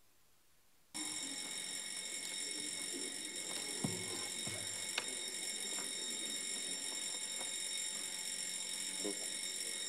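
An alarm bell starts ringing about a second in and rings steadily at a high pitch, with a few faint knocks.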